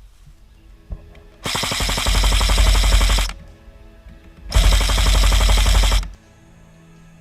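Airsoft electric gun firing two long full-auto bursts, each under two seconds, a little over a second apart.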